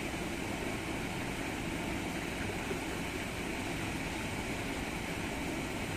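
Steady outdoor background noise, a low rumble under a hiss, with no distinct events.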